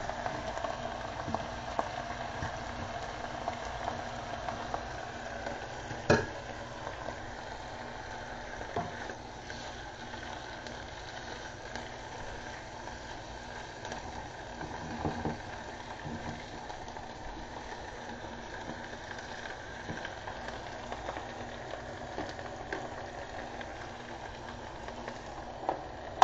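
Sliced onions frying in melted butter in a frying pan: a steady sizzle, with occasional sharp knocks of a spatula against the pan, the loudest about six seconds in.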